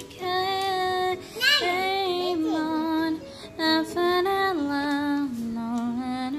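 Slow love ballad playing as background music, a high voice singing long held notes that step down in pitch.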